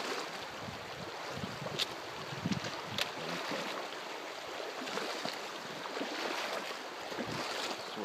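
Shallow mountain creek running over a gravel bed as someone wades through it, with a few sharp clicks.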